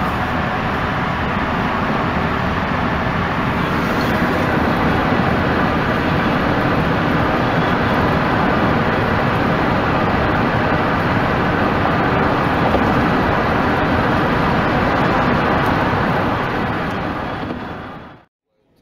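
Steady road and engine noise inside a car cabin while driving on an expressway, fading out to silence near the end.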